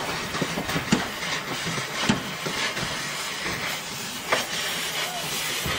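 Workshop noise: a steady hiss with a few sharp knocks about 1, 2, 4 and 6 seconds in.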